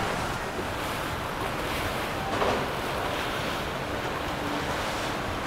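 Steady water wash and wind noise on the microphone over the low running of a center-console boat's twin 300 hp outboard motors as it cruises past. A brief louder blip comes about halfway through.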